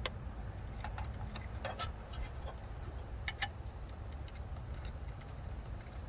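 Small bolts being handled and fitted by hand into a heavy-duty steel strut clamp: scattered light clicks and taps, a few each second or two, over a steady low background rumble.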